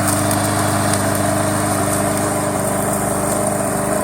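Remote-control lawn mower's engine running steadily, an even drone with a thin high whine above it.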